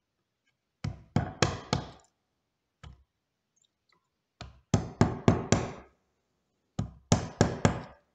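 A bench chisel being struck repeatedly to chop out a joint recess in a wooden board. The sharp knocks come in quick clusters of four to six blows, with short pauses between.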